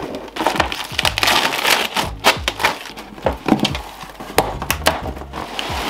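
Packing tape being slit and torn off a cardboard box: a run of sharp crackling rips and cardboard rustles.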